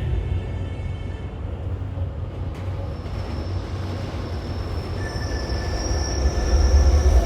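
Subway train running on the rails: a steady low rumble, with a high-pitched wheel squeal that comes in about three seconds in and grows louder, joined by a second squealing tone near the end.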